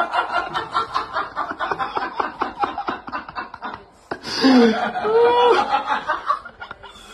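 A person laughing in rapid short bursts for about four seconds, then a voice making drawn-out sounds that slide up and down in pitch.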